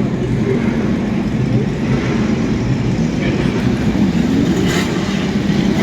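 Historic racing car engines running with a steady, low rumble, with a brief rise in hiss about five seconds in.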